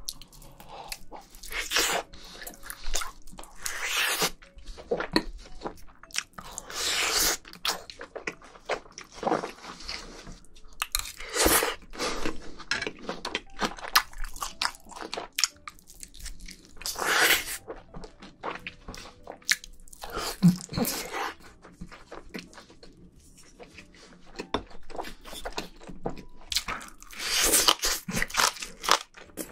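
Close-miked mouth sounds of a person eating: chewing and biting in irregular bursts, first on a slice of pork belly, then crunchy bites into green onion kimchi near the end.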